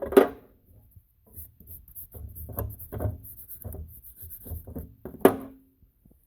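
Parts from a disassembled transfer case being handled on a bench: light rubbing and small clinks and knocks, with a sharp knock at the start and another about five seconds in that rings briefly.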